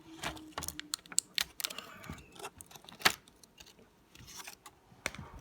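Irregular plastic clicks and taps as a laptop screen panel and its parts are handled and taken off, with one sharper knock about three seconds in.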